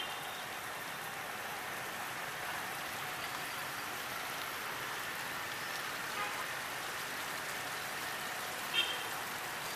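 Steady hiss of noise, like rain or running water, with a brief high chirp about nine seconds in.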